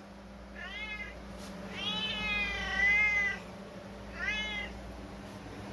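Domestic cat meowing three times, the middle meow long and drawn out. This is hunger meowing, which the owner blames on the cat's diabetes.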